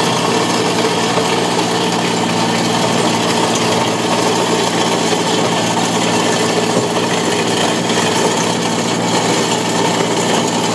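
Simex PLB 200 hydraulic planer's narrow 30 mm cutting disc milling a groove in asphalt: a steady, loud grinding over the hum of the Cat 301.7D mini excavator that drives it.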